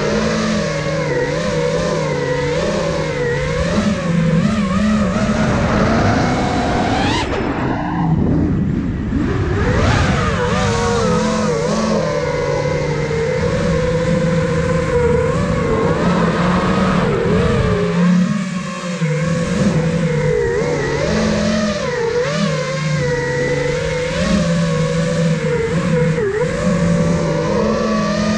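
Propeller and motor whine of an iFlight Nazgul Evoque F5 five-inch FPV quadcopter in freestyle flight, its pitch rising and falling with the throttle. About seven seconds in the sound drops away and then climbs again in a rising whine about two seconds later.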